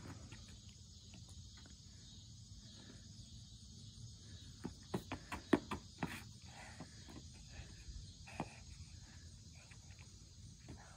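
Faint outdoor ambience: a steady high insect drone, with a scatter of sharp taps and scuffs from sneakers on asphalt, clustered about halfway through.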